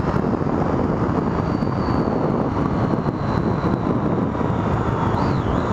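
Triumph Street Triple R's three-cylinder engine running steadily while the bike is ridden at speed, mixed with heavy wind rush on the microphone.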